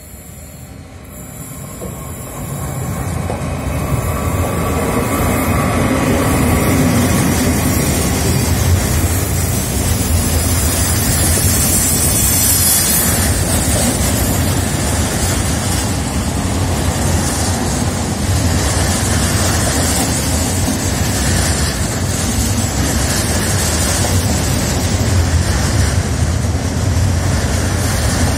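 Intermodal freight train, hauled by two electric locomotives with a Siemens Vectron among them, approaching and passing at speed. The wheels and wagons on the rails build to a loud, steady rumble over the first four seconds, then run on evenly as the long string of trailer-carrying wagons goes by.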